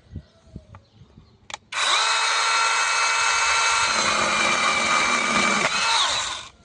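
Small brushless battery mini chainsaw: a brief blip of the motor, then about two seconds in it runs at full speed with a steady high whine for about four and a half seconds before winding down and stopping. A few light knocks come before it.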